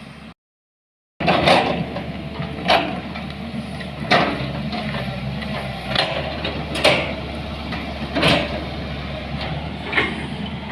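A vehicle engine running steadily, with sharp knocks or clatters every second or so.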